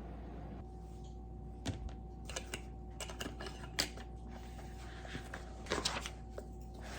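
Scattered light clicks and taps from desk work, irregular and sparse, with a small cluster about six seconds in, over a low steady room hum.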